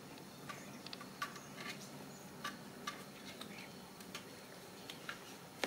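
Faint, irregular light clicks and ticks, about a dozen, from a Ragdoll kitten's claws picking at a crocheted lace cloth as it paws and climbs on it.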